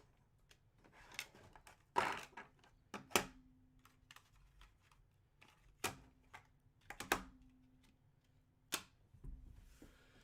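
Scattered sharp clicks and knocks, about half a dozen spaced a second or more apart, of objects being handled on a table.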